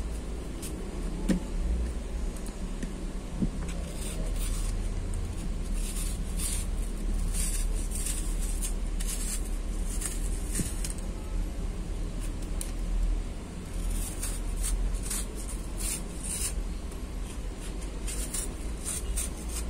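Small kitchen knife peeling the skin off an apple wedge: an irregular run of short cutting strokes in uneven bunches, over a steady low background rumble.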